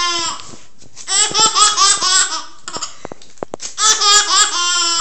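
A young child giggling in two bouts of high-pitched laughter, about a second in and again near the end, with a few short clicks in the pause between.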